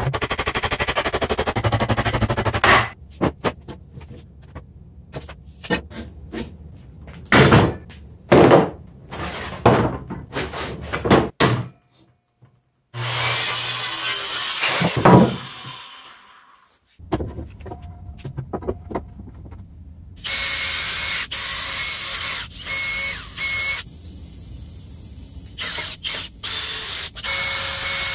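Workshop tool noise in several stretches: a run of knocks and short scraping strokes on wood, then an electric hand planer running for a couple of seconds and winding down. Near the end a brushless cordless drill drives a long screw into the wooden table frame in short whining bursts.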